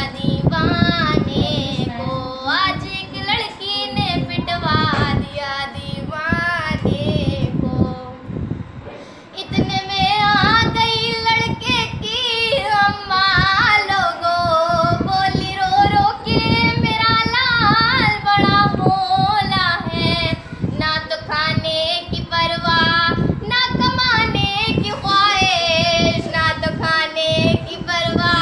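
A girl singing a melodic song solo, holding long wavering notes, with a brief pause for breath about eight seconds in.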